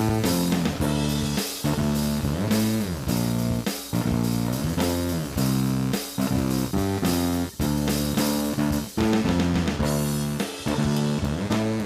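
Band music led by guitar over bass guitar and a drum kit, the notes changing quickly, some of them sliding up and down in pitch.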